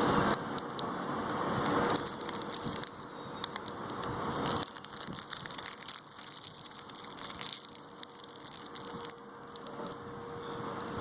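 Plastic candy wrappers crinkling as they are handled: a run of irregular crackles, thickest in the first few seconds and scattered after that, over a steady background hiss.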